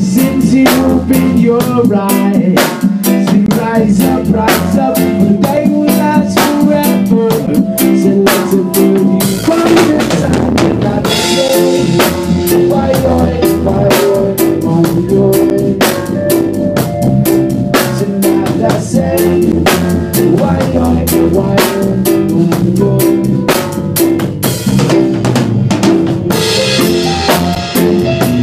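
Reggae band rehearsing live: drum kit with rimshots, bass drum and snare keeping a steady beat under electric guitar and keyboard, with a man singing into a microphone.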